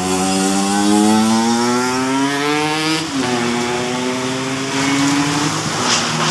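A passing motorcycle's engine accelerating, its pitch rising for about three seconds, then dropping suddenly and running steadily, with another engine humming underneath.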